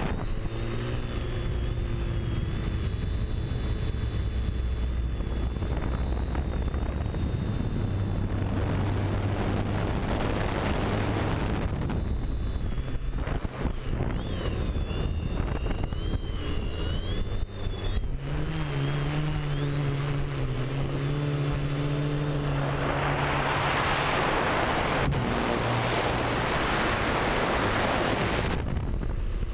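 TBS Discovery Pro quadcopter's four brushless motors and propellers whining in flight, their pitch shifting up and down with the throttle. A rush of wind on the microphone comes in from about 23 to 28 seconds in.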